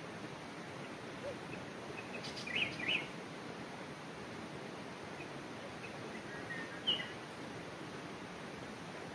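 Steady rush of a nearby river with a few short bird chirps: two close together about two and a half seconds in, and one more near seven seconds.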